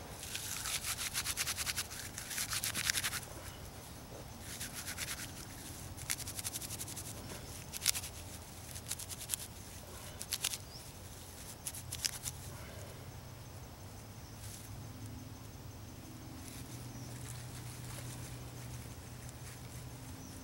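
Dry birch bark and nest tinder being rubbed and shredded between the hands: crisp crackling rustle in bursts during the first few seconds, then scattered single crackles.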